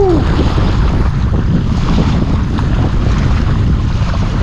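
Wind buffeting the microphone, a steady rumbling noise.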